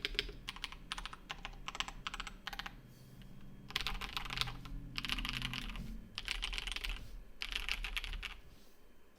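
Mechanical keyboard with stock, unlubed Red Jacket linear switches being typed on: separate keystrokes at first, then four fast runs of typing of about a second each, stopping near the end.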